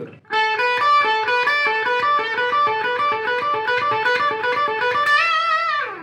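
Ibanez electric guitar playing an old blues pattern: rapid, evenly repeated notes cycling through three fretted notes, 14th fret on the G string and 12th and 15th frets on the B string. Near the end it finishes on a note bent up and let back down.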